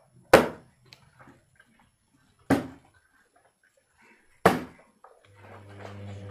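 Plastic water bottle flipped and landing hard on the floor, three sharp thuds about two seconds apart. A steady low hum comes in near the end.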